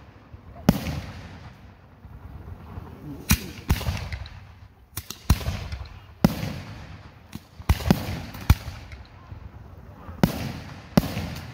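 Aerial firework shells bursting: about nine sharp bangs, irregularly spaced a second or two apart, each fading away over a second or so.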